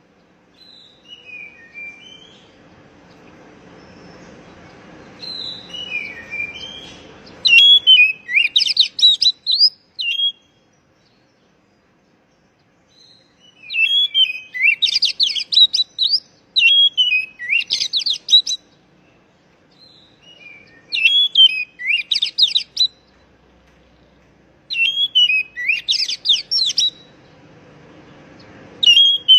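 Oriental magpie-robin (kacer) singing: soft scattered calls at first, then from about eight seconds in a series of loud phrases of rapid, high chirps and trills, each a second or two long, with short pauses between them.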